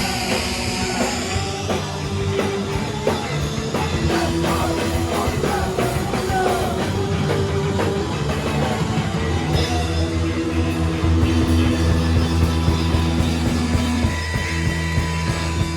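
Live rock band playing loud, with a drum kit under sustained guitar chords.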